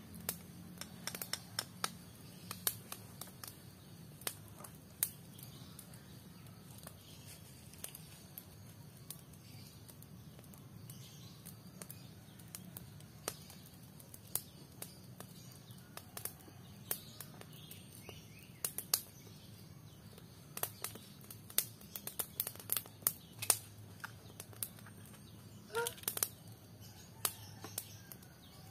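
Small wood fire under a flat cooking stone, crackling with irregular sharp clicks and snaps, mixed with taps as an egg is knocked with a knife and cracked open over the stone. A short bird call near the end.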